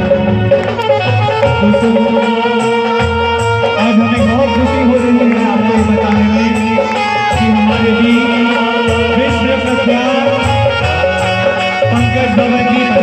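Live devotional bhajan music played loud through a PA: a man singing into a microphone over a sustained melody with a steady percussion beat.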